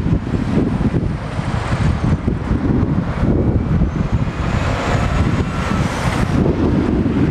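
Wind buffeting the microphone over road traffic. A Scania truck towing a drawbar trailer comes up and passes close, its engine and tyre noise swelling until about six seconds in and then dropping away.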